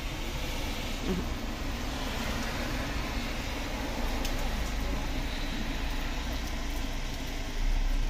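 Rain and traffic on wet roads: a steady, even hiss.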